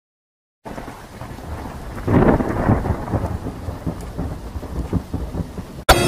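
Rain sound effect: steady rainfall with rolling thunder, the rumble swelling about two seconds in. It cuts off just before the end, where a sharp ringing hit begins.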